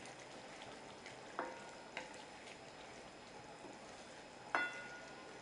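Chicken and masala sizzling softly in a pot, with a metal spoon clinking against the pot three times; the last clink, near the end, is the loudest and rings briefly.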